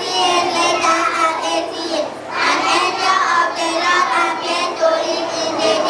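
A group of children singing together, with a brief pause between phrases about two seconds in.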